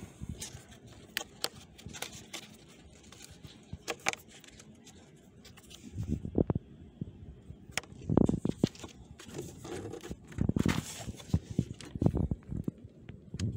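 Hard plastic cabin air filter housing parts being handled: scattered light clicks and scrapes, then irregular dull knocks and rumbling handling noise from about halfway on.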